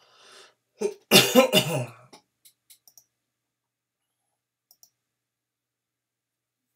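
A man coughs once, loudly, about a second in, followed by a few faint computer mouse clicks.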